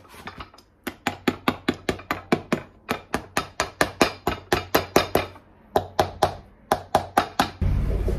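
Cobbler's hammer striking the heel base of a leather boot held on a shoe last, in quick runs of sharp taps about four a second with a short pause partway through. A steady low hum starts near the end.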